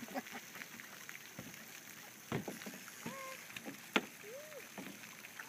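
A canoe being paddled hard: splashes of paddle strokes and sharp knocks of the paddle against the hull, the loudest knock about four seconds in. A few short calls that rise and fall are heard between the knocks.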